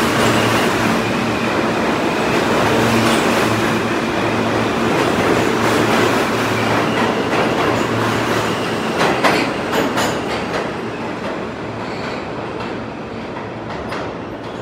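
R160 subway train running past close by on the platform track: dense rumble and clatter over a low, pulsing hum, with a cluster of sharp clicks about nine to ten seconds in. The noise then slowly fades.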